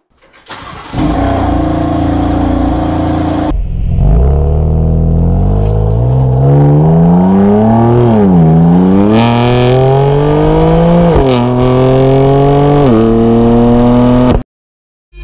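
A performance car's engine running hard. It first runs steadily for a few seconds, then accelerates through the gears, its pitch climbing and dropping sharply at each upshift, about three times, before cutting off suddenly.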